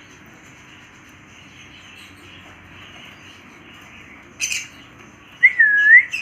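A pet parrot gives one short, sharp chirp, then about a second later a loud whistle that dips in pitch and rises again.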